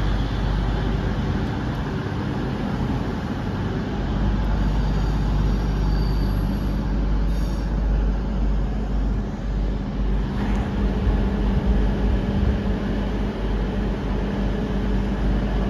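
CrossCountry Voyager diesel multiple unit standing at the platform with its underfloor diesel engines idling: a steady low hum with a constant tone.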